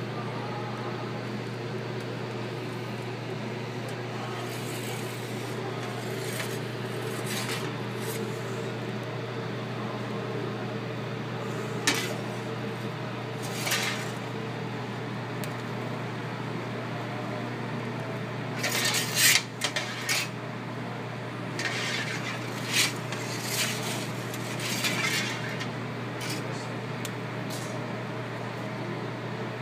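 Restaurant kitchen sounds: a steady low mechanical hum, with dishes and utensils clattering now and then, the loudest burst about twenty seconds in.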